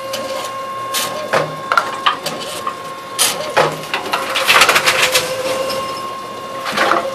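Tomra T-63 reverse vending machine running with a steady hum while plastic bottles are fed in. Over it come a series of knocks and rattles as the bottles go through the machine.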